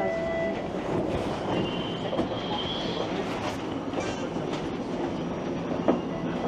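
Streetcar running on its rails: a steady rumble with wheels clicking over track joints and a faint high wheel squeal about two seconds in, and a single sharp knock near the end.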